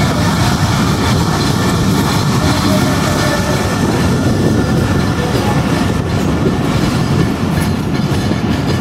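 A passenger train running along the track, heard from aboard the moving coach: a steady noise of wheels on the rails.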